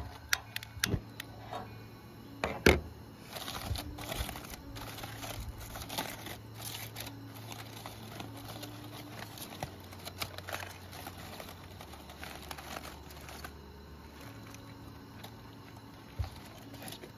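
Aluminium foil crinkling and rustling as a foil-wrapped package is unwrapped by hand, with irregular sharp crackles throughout.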